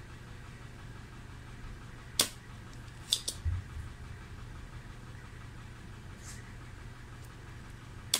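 Spring-loaded desoldering pump firing to suck molten solder from a capacitor's joints on a circuit board: a sharp snap about two seconds in, a quick pair of clicks about a second later, and another snap near the end. A steady low hum runs underneath.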